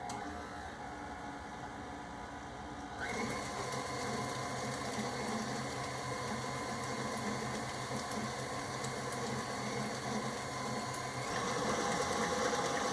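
Electric stand mixer running steadily, its paddle attachment mixing yeast water into flour and salt for bread dough. The motor gets louder about three seconds in and again near the end.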